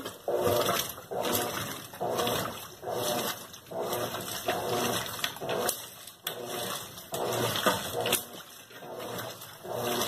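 Colormaq LCA11 top-loading washing machine agitating a load in water. The agitator swings back and forth about once a second, and each stroke brings water sloshing and a pitched mechanical whine from the drive. The technician says the machine has a faulty, noisy transmission.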